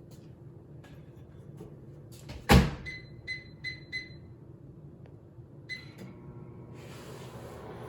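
Microwave oven door shut with a knock, then four quick keypad beeps and one more beep as it is set and started. After that the microwave runs with a low steady hum.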